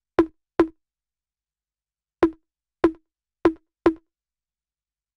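Six short, dry wood-block knocks, all on the same note: two in quick succession at the start, a pause of about a second and a half, then four more spaced roughly half a second apart.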